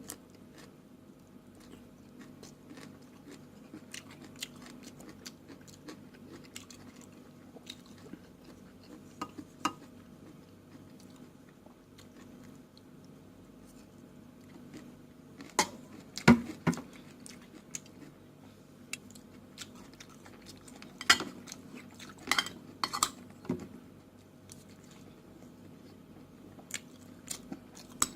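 Close-up chewing and mouth sounds of someone eating, with utensils clinking against a plate in two short clusters, about halfway through and again about three-quarters through, over a steady low hum.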